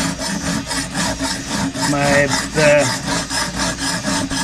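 A coarse 200-grit diamond stone on a guided sharpening system is stroked quickly back and forth along the edge of a 5160 carbon-steel knife blade, making a rapid, rasping scrape of steel on diamond. This is the coarse stage of setting the edge, worked until a burr forms.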